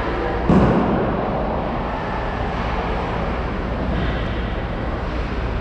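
Ice hockey arena sound: a steady low hum of the rink with the noise of play, and one sharp crack from the play about half a second in, the loudest moment, trailing off quickly.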